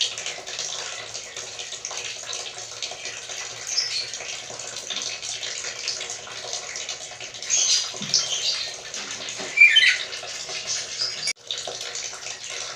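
Black-capped lory giving a few short, high squeaky calls, the loudest a quick falling glide about ten seconds in, over a steady hiss.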